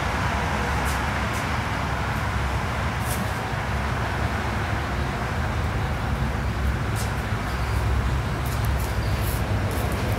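Steady low rumbling background noise, with a few faint high clicks scattered through it.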